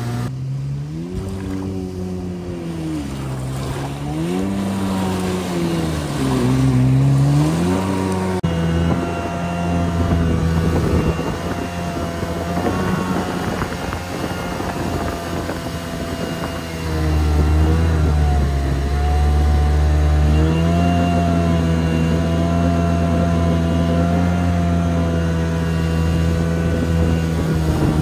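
Kawasaki Jetmate mini jet boat's two-stroke engine running under way. The engine note rises and falls several times over the first eight seconds, then settles into a steadier, higher run, dipping briefly about two-thirds of the way through.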